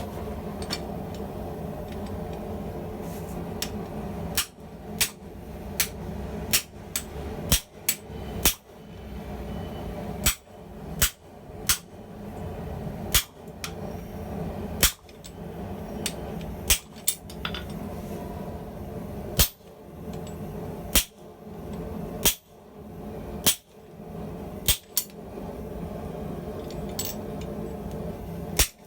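Hand hammer striking hot steel on an anvil while forging a hammer head: about twenty single blows at an uneven pace of roughly one a second, starting about four seconds in. A steady low rumble runs underneath.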